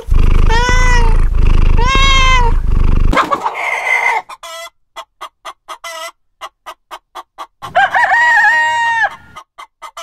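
A cat meowing twice, each meow rising and falling in pitch. Then a rooster clucks in a quick run of short notes and crows once with a long held call about eight seconds in.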